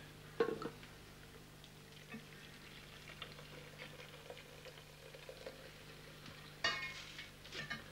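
Aluminium teapot and kettle clinking and knocking as tea is made, with a sharp clink about half a second in and a rattle of metal with a brief ring near the end, over a steady low hum.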